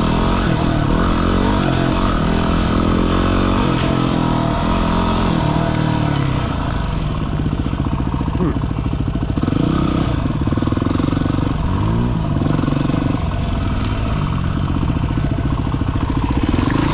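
Dirt bike engine running under load, its pitch rising and falling in steps as the throttle is worked and gears change while riding a rough track.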